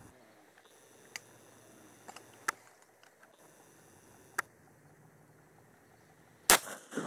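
Quiet background with a few short, sharp clicks spread through it, then a much louder knock about six and a half seconds in and another just before the end.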